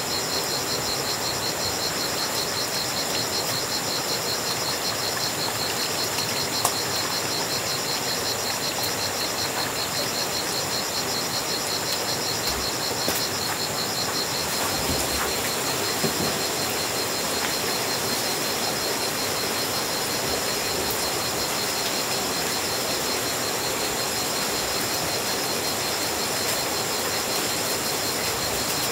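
Insects trilling steadily in a fast-pulsing high note over an even, steady hiss, with a few faint knocks.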